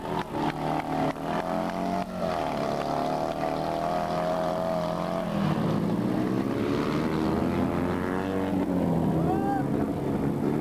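Fiat 126p rally car's small air-cooled two-cylinder engine revving hard as it is driven around a gravel course. The note stutters for the first couple of seconds, holds high, drops about halfway through, then climbs again.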